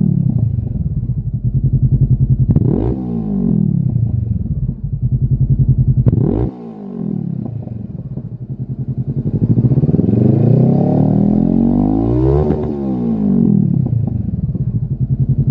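Honda CB500F's 471 cc parallel-twin engine running through a Lextek GP8C carbon-fibre aftermarket silencer, revved on the spot: quick sharp blips of the throttle about three and six seconds in, idling between them, then a slower, longer rise in revs that peaks and drops back near the end.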